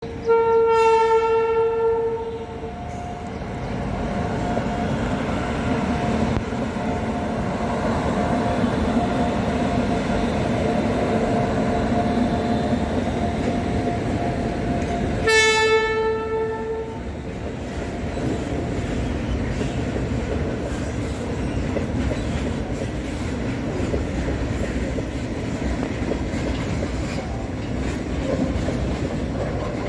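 Twin WAG-9 electric locomotives sound their air horn for about two seconds at the start and again briefly about halfway through. Between and after the blasts comes the steady rumble and clatter of the locomotives and tank wagons rolling past.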